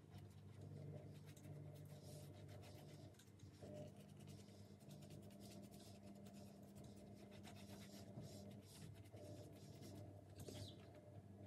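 Faint, repeated scratching strokes of a hand tool rubbing along a freshly glued cricket bat handle, over a low steady electrical hum.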